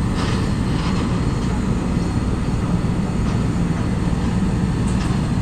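Steady low rumble of vehicle traffic, engines running nearby.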